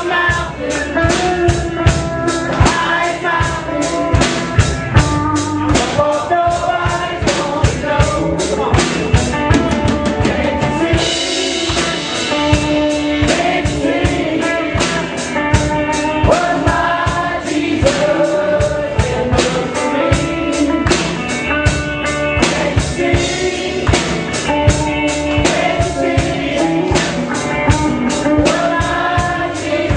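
Rock band playing an instrumental passage: a drum kit keeps a steady beat under bass and a melodic lead line, with a cymbal crash about eleven seconds in.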